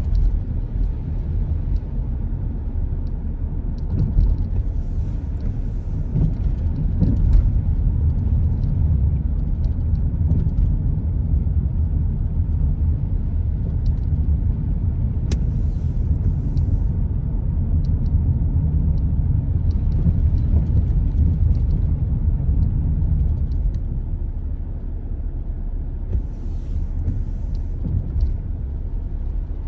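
Car driving, with a steady low rumble of engine and tyres on a rain-wet road. There are a few faint clicks and short hisses.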